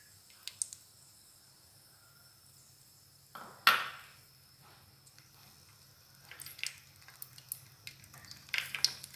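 Egg frying in melted pork lard in a metal pan with a faint crackle, a single loud clatter of kitchenware about three and a half seconds in, and light pops and clicks that grow busier toward the end.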